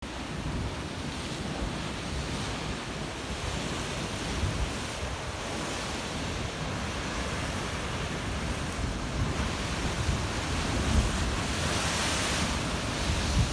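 Rough sea surf breaking and washing over shoreline rocks, a steady rushing hiss, with gusts of wind buffeting the microphone. A louder wash of surf comes near the end.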